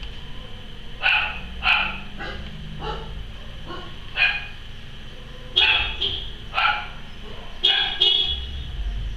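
A dog barking repeatedly: about eight short barks, irregularly spaced and some in quick pairs.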